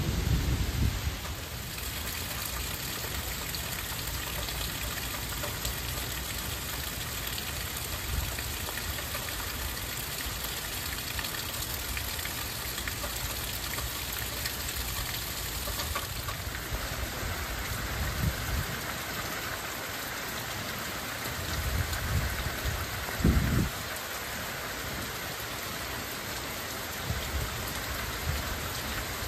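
Heavy thunderstorm rain falling with a steady hiss. A thunder rumble fades out in the first second or so, and a few brief low rumbles come later, the loudest about 23 seconds in.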